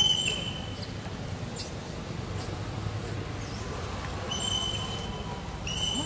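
High, thin, squealing calls over a steady low outdoor rumble. One squeal comes at the very start and two come near the end, each lasting under a second.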